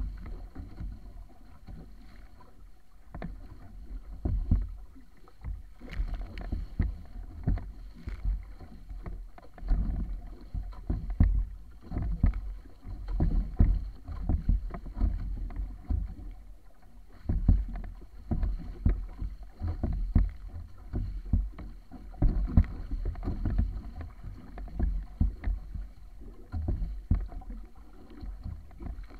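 Water rushing and splashing against the wooden hull of a wa'apa outrigger canoe sailing fast through choppy water. Wind rumbles on the microphone in irregular gusts.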